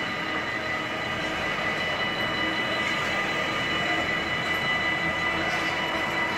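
Intermodal freight train's wagons, loaded with semi-trailers, rolling past at speed: a steady rush and rumble of wheels on rail, with a faint steady high whine over it.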